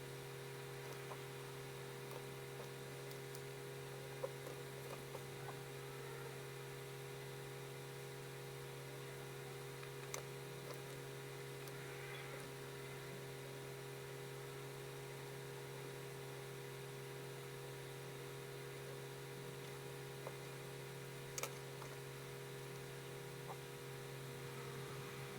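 Steady electrical hum, with faint pencil strokes scratching on paper now and then and a few small sharp clicks.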